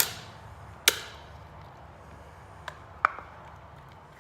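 Sharp clicks and knocks from handling a Park Tool chain cleaner as it is taken off a bicycle chain: two loud ones close together, then two fainter ones about two seconds later.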